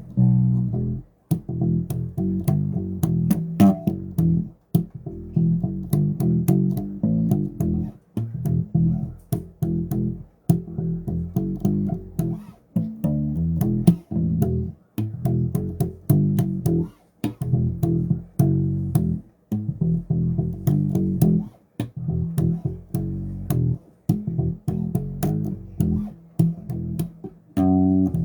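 Bass guitar played solo: a continuous run of plucked low notes, with brief gaps between phrases.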